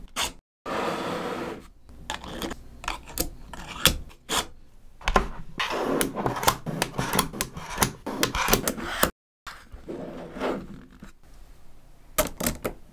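Small neodymium magnet balls being handled: quick runs of sharp clicks as strips and sheets of balls snap together and are pressed into place, with stretches of rasping rubbing as the balls slide and roll over one another.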